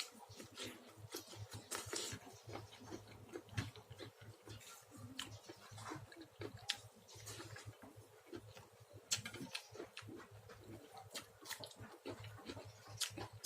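Close-up eating sounds: a person chewing and smacking their mouth, with irregular small clicks and wet smacks.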